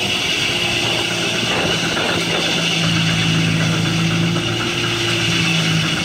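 Sawmill belt-driven by a Baker steam traction engine, running as a log is sawn: a steady hum with a high hiss above it, the hum growing stronger about halfway through.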